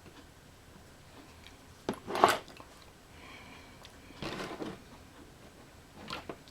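Small objects being handled on a workbench: a sharp click and a short knock about two seconds in (the loudest), then two shorter rustling knocks.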